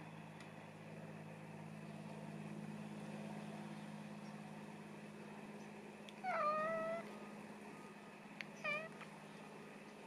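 Domestic cat meowing twice: a longer meow that drops in pitch and then holds, about six seconds in, and a short falling meow near the end.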